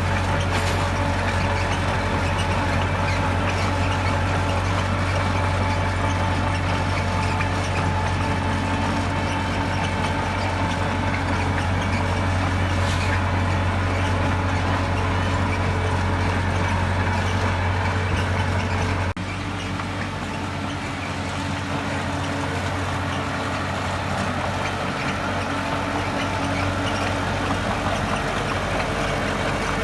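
Heavy diesel construction machinery running steadily, a constant low engine hum under mechanical noise. About two-thirds of the way through, the sound changes abruptly and drops slightly in level.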